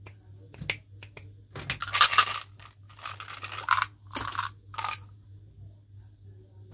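Small sugar-coated chocolate gems rattling against the sides of a small plastic jar in several short bursts as the jar is shaken and the candies are poured into a palm. The loudest rattle comes about two seconds in.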